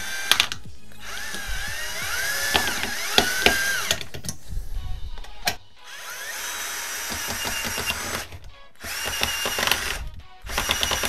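Ginour 12V cordless drill driver turning a screwdriver bit through a flexible shaft extension, driving a small screw into pallet wood. It runs in several bursts with short pauses, its whine rising and falling in pitch.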